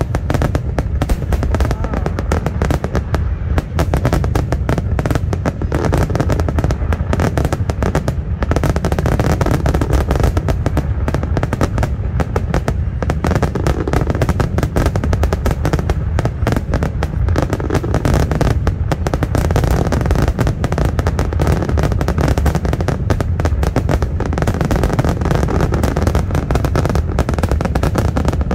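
Aerial firework shells bursting in a rapid, unbroken barrage, one bang after another with no pause.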